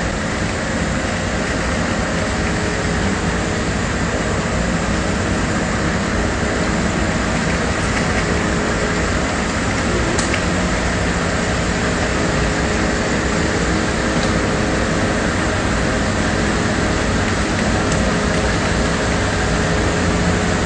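Ready-mix concrete mixer truck's diesel engine running steadily, a loud constant noise with a low rumble.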